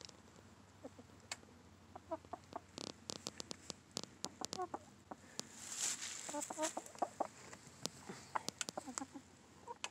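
Chickens clucking quietly in short bursts several times, among many small clicks and a brief rustle about six seconds in.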